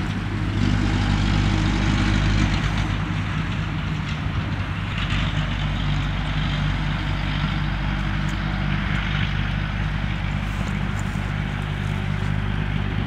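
Car engine idling with a steady low hum, under a faint outdoor hiss.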